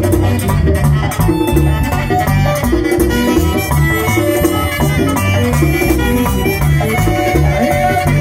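Live Latin dance band played loud over a stage sound system: a bass line repeating a short figure, hand drums, saxophone and accordion.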